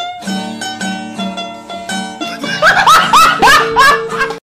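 Meme music: a quick run of short, evenly spaced pitched notes, then, from about two and a half seconds in, a louder string of short upward-sliding notes over a steady low note. It cuts off abruptly just before the end.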